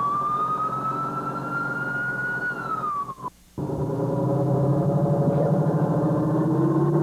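A siren wailing, its pitch rising slowly and then falling, over a running engine; about three seconds in the sound drops out briefly. After that an engine runs steadily and starts to rise in pitch as it speeds up near the end.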